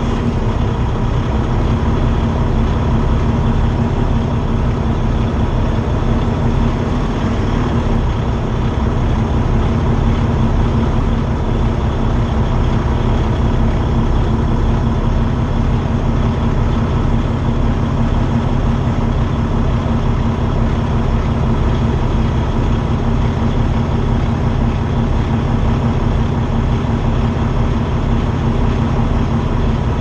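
Semi-truck's diesel engine running steadily as the rig moves slowly.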